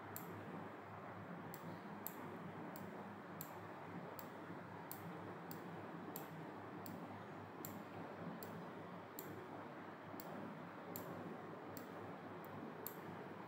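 Faint computer mouse clicks, irregular but about one or two a second, over a low steady hum.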